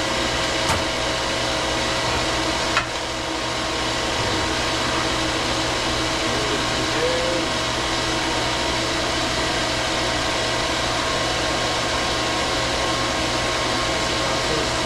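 Steady whir of a running motor-driven machine with a constant hum, and a light click about three seconds in.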